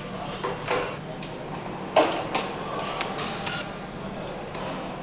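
Clinks and knocks of hand tools and metal parts being handled on an AMG V8 engine during assembly, over a steady factory hum. The loudest knock comes about two seconds in.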